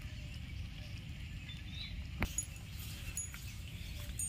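Steady low rumble of outdoor background noise, broken by a single sharp click about halfway through; a few faint, short, high chirps follow the click.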